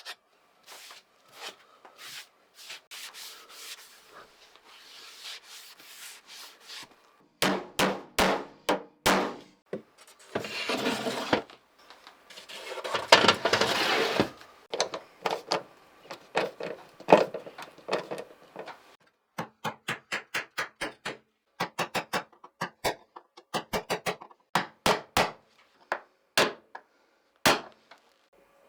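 Hand work on a wooden ice box: stretches of rubbing against wood between many light knocks and taps, with a quick run of taps in the second half.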